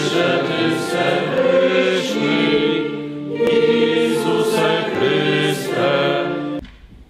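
Choir singing a church hymn, several voices together holding long notes; the singing breaks off abruptly near the end.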